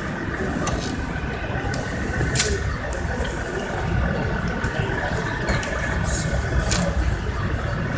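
Busy exhibition-hall background: indistinct voices over a steady low rumble, with a few sharp clicks.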